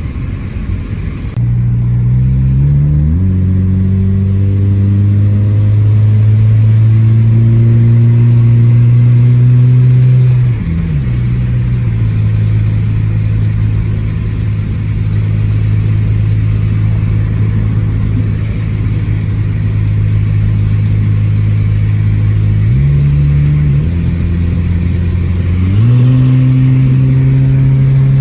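2001 Toyota Corolla's 1.8-litre four-cylinder engine accelerating on the road, its pitch climbing, then dropping sharply at a gear change about ten seconds in. It runs steadily for a while, eases off, and pulls up again near the end; the car has an exhaust leak.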